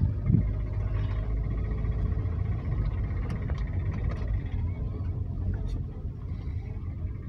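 Car engine and road noise heard from inside the cabin while driving, a steady low rumble, with two low thumps right at the start.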